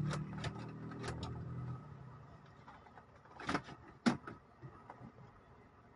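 Low hum of a Mazda CX-7's running engine heard from inside the cabin, fading away over the first two seconds. After that come a few scattered light clicks.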